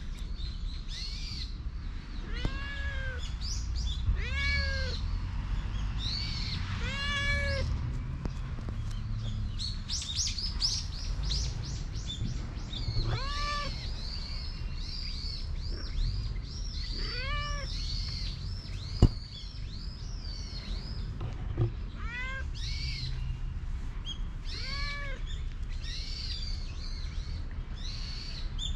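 Stray domestic cat meowing again and again, about seven short rising-and-falling meows spread through. A single sharp tap sounds about two-thirds of the way through.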